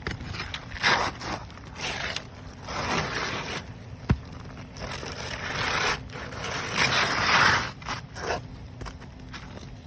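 Asphalt roof shingles scraping and crackling as they are pried up and worked loose in a repair test, in irregular bursts with one sharp click about four seconds in.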